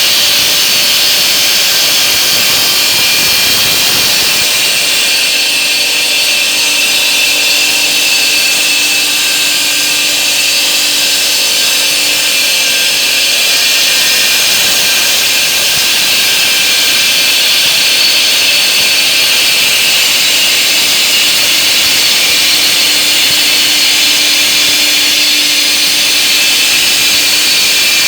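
Homemade semi-automatic stone-cutting machine running steadily, its saw blade cutting through stone with a loud, even, high-pitched hiss and whine.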